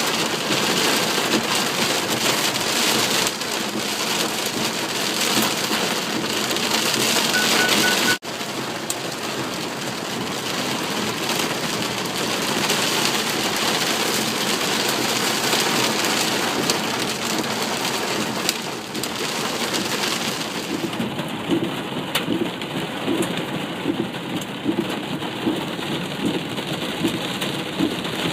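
Hail and heavy rain pelting down hard in a violent storm, a dense, steady clatter of countless small impacts, with an abrupt break about eight seconds in.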